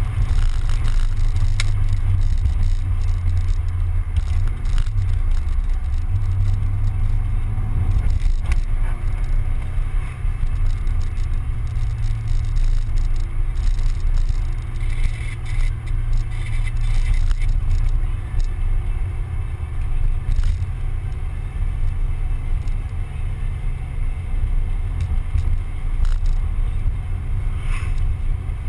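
A Mazda Miata on the move: steady engine and road noise under a heavy low wind rumble on the microphone.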